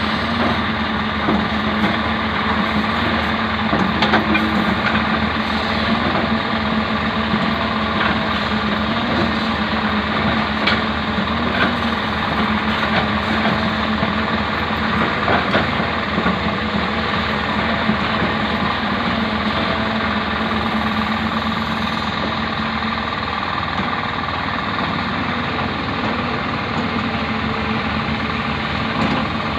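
Hyundai backhoe's diesel engine running steadily while it digs, with a few sharp metallic clanks scattered through.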